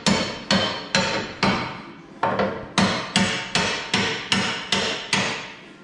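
Hammer blows on metal, struck in a steady rhythm of about two to three a second with a short ring after each, dying away near the end. The hammering goes with getting the mounting bolts in while a new bulkhead is fitted to a Land Rover chassis.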